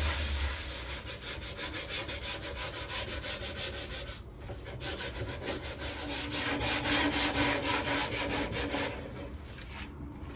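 Hand sanding block rubbing back and forth on veneered plywood in quick, even strokes, about four or five a second, with a brief pause about four seconds in.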